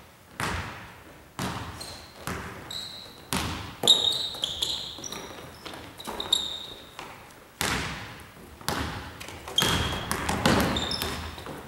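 Basketball bouncing on a hardwood gym floor in irregular thuds roughly a second apart, each echoing in the hall, with sneakers squeaking in short high chirps on the boards between bounces.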